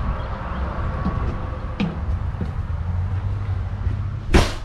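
Steady low outdoor rumble with a few faint clicks, then one loud thud near the end.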